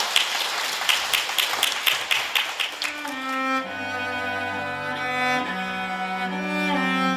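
Audience applauding for about three seconds, then a children's cello ensemble begins playing, with slow held bowed notes.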